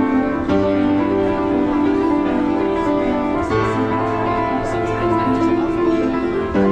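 Upright piano played with sustained, ringing chords; the bass note changes twice, about half a second in and again about three and a half seconds in.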